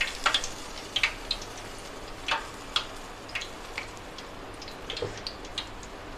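Medu vadas deep-frying in a kadai of hot oil on full heat: a steady sizzle with scattered sharp crackles and pops.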